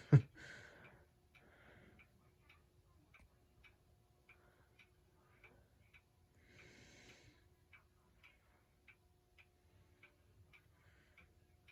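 S.M.C A52 52-inch ceiling fan running with a faint steady motor hum. A light tick repeats about every two-thirds of a second, and a soft rush of air comes about halfway through.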